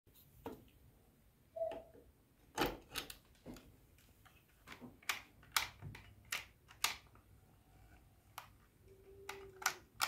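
Sharp plastic clicks and knocks, about a dozen spread irregularly, as a plug is pushed into a wall socket and a plastic hair dryer is handled and its slide switches are worked. A brief faint hum sounds near the end.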